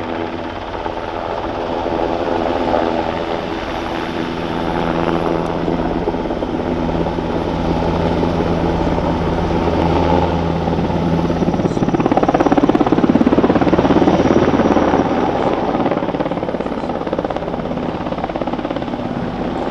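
A twin-engine NH90 military helicopter flying past, with its rotor and turbines making a steady hum made of several tones over a deep rumble. About twelve seconds in, it swells to its loudest, with a rapid pulsing of the rotor blades, and the tones shift. After a few seconds it eases back.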